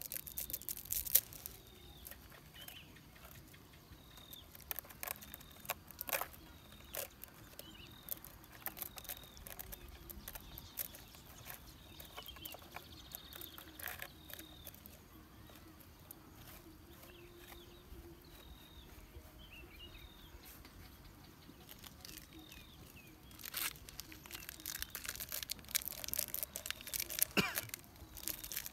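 Crackling and tearing as a fibrous piece of coconut is picked and pulled apart by hand. Denser crackling comes near the start and again in the last few seconds. A bird chirps over and over in the background, short falling chirps.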